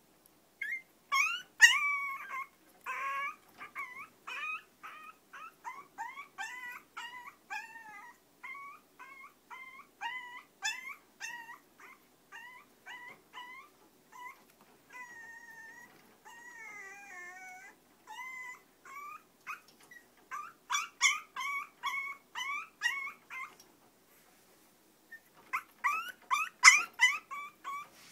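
Long-coat Chihuahua puppy crying: a long run of short, high-pitched whimpers and yips, about two a second, with a few longer wavering whines in the middle. The loudest yelps come near the start and in two bunches near the end, after a brief pause.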